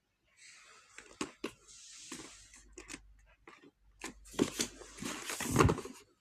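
Packaging of a watercolour kit being torn open and handled: rustling, crinkling and tearing with sharp clicks, louder and more crackling in the last two seconds.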